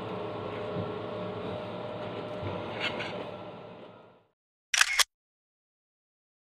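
Steady room hum with a few faint clicks, fading out about four seconds in to dead silence. Near the five-second mark the silence is broken by a short, loud double click.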